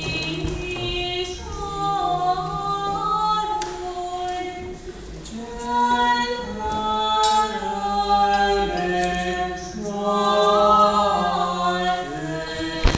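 Unaccompanied Romanian Orthodox church chant sung by a few voices during a baptism service, in long held notes that move from phrase to phrase, with short breaks between phrases.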